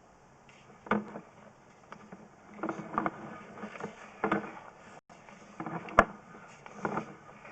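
A series of irregular knocks and clattering, with a sharp click about six seconds in.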